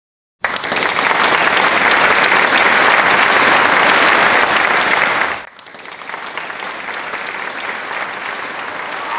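Applause, starting abruptly about half a second in, then dropping sharply to a quieter level about five seconds in and carrying on.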